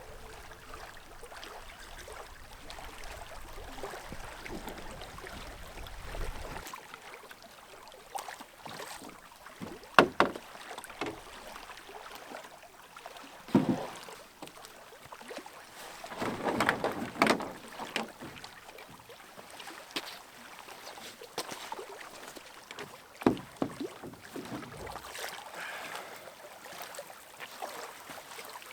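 Canoe being paddled: irregular paddle strokes with splashes of water and occasional sharp knocks, the loudest about a third of the way in.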